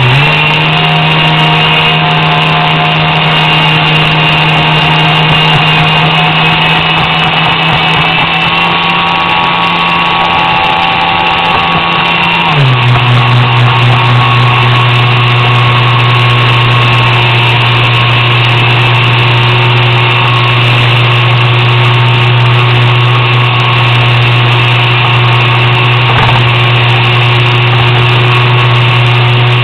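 Model airboat's 3900 kV brushless inrunner motor, geared 3.6:1 to a 9x9 propeller, running at a steady high speed with a loud, even hum. A little before halfway its pitch drops suddenly to a lower steady note as the throttle eases.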